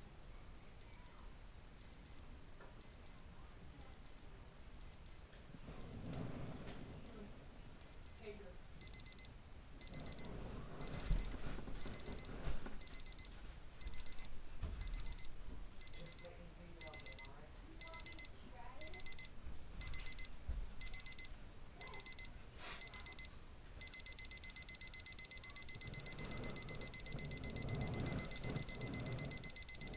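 Battery-powered LCD digital alarm clock ringing: high-pitched electronic beeps in short bursts about once a second, the bursts growing longer as the alarm steps up, until about 24 seconds in it breaks into rapid, continuous beeping.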